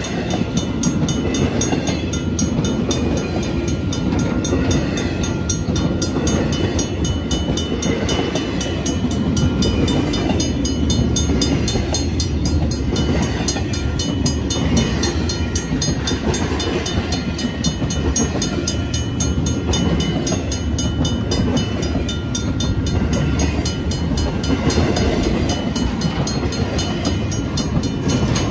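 Empty BNSF freight cars rolling steadily past at close range, a continuous rumble of steel wheels on rail. A grade-crossing bell rings steadily over it.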